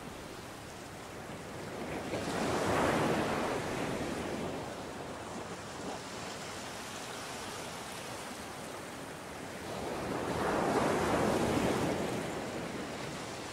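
Sea surf on a sandy beach: a steady wash of breaking waves that swells up twice, about two seconds in and again about ten seconds in.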